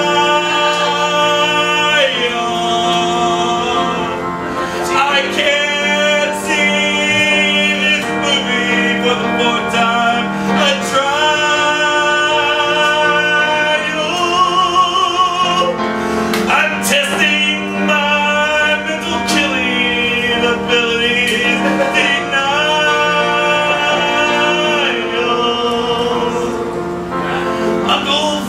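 Singers performing a song over instrumental accompaniment, holding long notes that waver in pitch over a steady low note.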